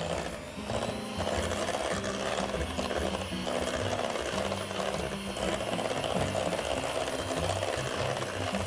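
Electric hand mixer running steadily, its beaters churning a thick butter-and-egg cookie batter in a stainless steel bowl.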